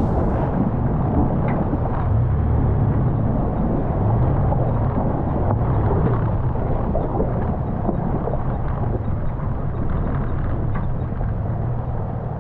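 Toyota FJ Cruiser's V6 engine running at low speed as the truck crawls through a shallow river crossing, a steady low rumble mixed with the rush of water and wind on the outside-mounted camera microphone.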